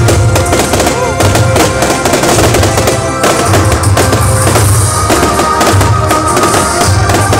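Music with a strong bass playing loud, with the bangs and crackles of exploding fireworks over it.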